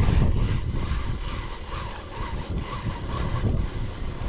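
Wind buffeting the action camera's microphone at sea, a steady rough rumble with uneven gusts.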